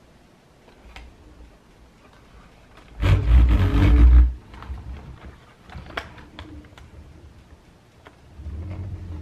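Built LEGO car models being turned and rolled across a tabletop. About three seconds in there is a loud rumble of plastic wheels and bricks on the table for about a second. A few light plastic clicks follow, with a weaker rumble near the end.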